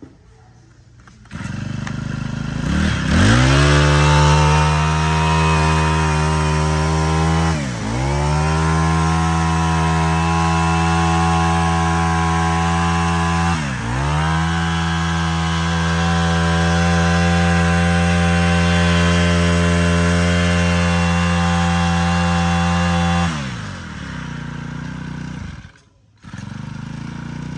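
Honda GX25 four-stroke 25cc brush cutter engine starting about a second in and revving up, then held at high revs for about twenty seconds with the throttle let off twice for a moment. It drops back to a lower, quieter run near the end.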